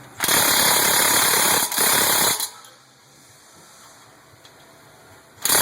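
Impact wrench hammering in three bursts, a long one, a short one, then another near the end, as it loosens the 17mm brake caliper bolts on the front wheel hub.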